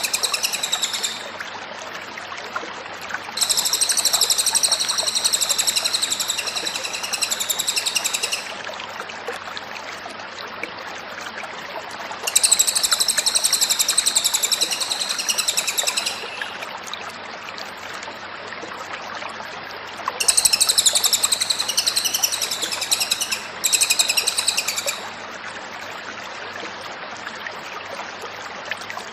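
Cililin songbird singing in repeated high, rapid, warbling phrases of about one to five seconds each, with pauses of a few seconds between them, over a steady background hiss.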